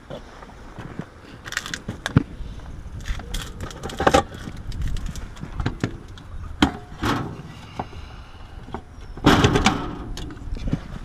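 Scattered metallic clicks and knocks of a screwdriver and hand tools at air conditioner capacitor terminals and panels, as the capacitors are shorted to discharge them. A denser cluster of clicks comes about nine seconds in, over a low steady background.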